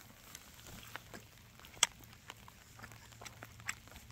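Campfire crackling: scattered sharp pops and ticks, with one louder crack a little under two seconds in.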